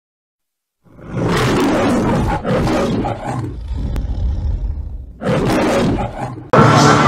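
Lion roars from the MGM studio logo intro, three in a row, the second trailing off; music starts abruptly about six and a half seconds in.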